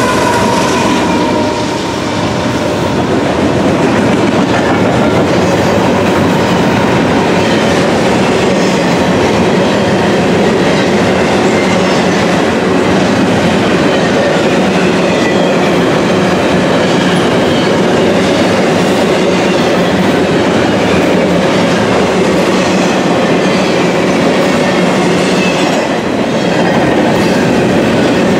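CSX double-stack container train passing close by, its well cars' wheels rumbling and clattering on the rails in a loud, steady roll.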